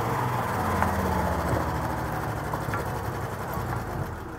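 Ford pickup's inline-six engine running just after a burnout, a steady low engine note with a few faint ticks, growing gradually quieter.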